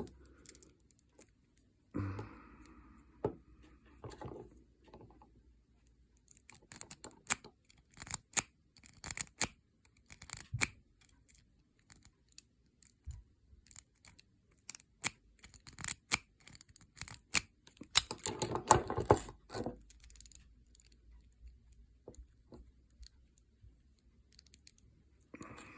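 Bobby pins raking ("zipping") the pin tumblers of Master Lock No. 3 padlocks: irregular runs of small metallic clicks and rattles, with a louder spell of clattering near the end as a lock is handled.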